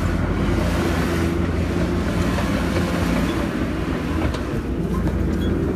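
Diesel engine of a Cat crawler bulldozer running with a steady low rumble as the dozer pushes earth with its blade.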